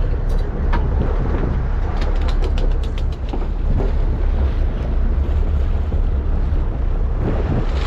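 Steady low rumble of a boat's engine mixed with wind buffeting the microphone. A quick run of light clicks comes about two to three seconds in.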